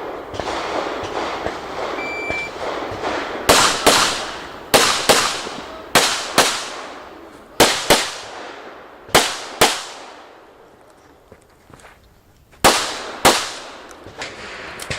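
Pistol shots fired in quick pairs: six double-taps, about twelve shots, each pair a fraction of a second apart with a few seconds between pairs, and each shot trailing off in an echo. A short high beep sounds about two seconds in.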